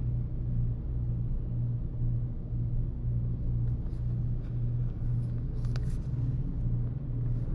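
Steady low hum that swells slightly about twice a second, with a few faint light clicks in the second half.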